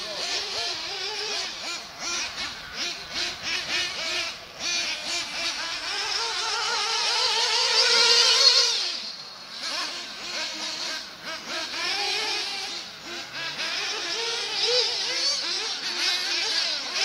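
Small nitro glow engines of 1/8-scale radio-controlled off-road buggies (a Losi and a Kyosho MP9 Inferno) racing round a dirt track, their high whine rising and falling in pitch as the throttle is worked. One engine climbs to a loud, high whine about eight seconds in, then cuts back sharply.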